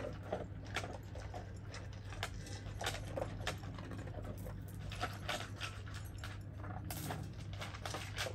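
Two young Kangal dogs eating from a bowl: irregular chewing, smacking and clicking sounds, a few each second.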